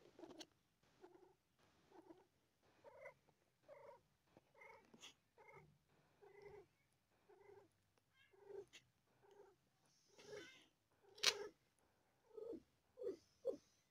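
Calico mother cat purring softly in short rhythmic pulses, about one and a half a second, while giving birth. A single sharp click sounds about eleven seconds in.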